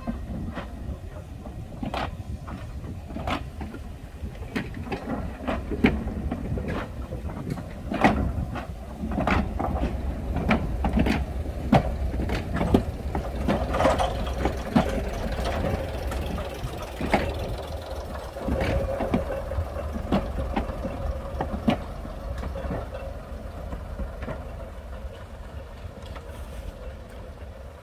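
Class 108 diesel multiple unit moving slowly past, its underfloor diesel engines running with a steady low rumble while the wheels click over rail joints and pointwork, the clicks coming faster in the middle.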